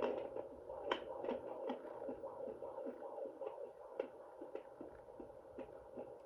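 Home fetal Doppler's speaker giving a whooshing hiss with quick, regular pulses about three times a second as the gel-covered probe searches the belly for the baby's heartbeat.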